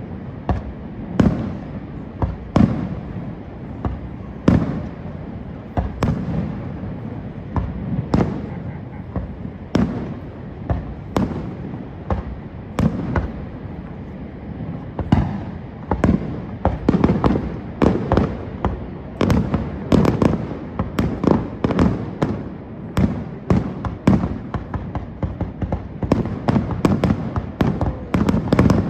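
Fireworks display: a string of sharp booming bursts, one every second or two at first, then coming thicker and faster through the second half in a rapid volley.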